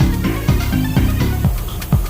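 Background music: an electronic track with a steady drum beat about two and a half hits a second over a stepping bass line.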